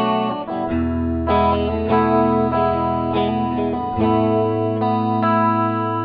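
Electric guitar played through a Mooer GE100 multi-effects unit on its factory 'Jazz Clean' preset: clean, undistorted chords struck one after another, each left to ring.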